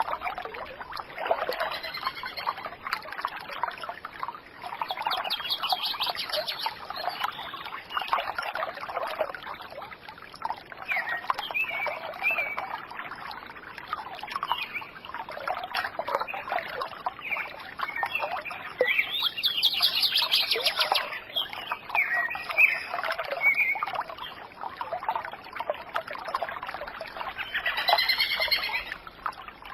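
Many birds chirping and calling at once, their calls overlapping continuously, with louder bursts of calls around the middle and near the end.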